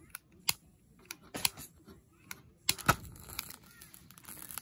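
Irregular sharp clicks and crinkling from handling camp stove gear: a plastic-wrapped solid-fuel cup and a gas lighter on a small folding metal pocket stove.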